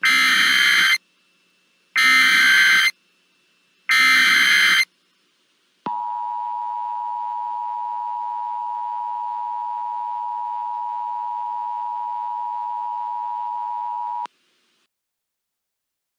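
Emergency Alert System broadcast test: three harsh one-second bursts of the SAME digital data header, about two seconds apart, then the steady two-tone EAS attention signal (853 and 960 Hz) for about eight seconds, cutting off suddenly.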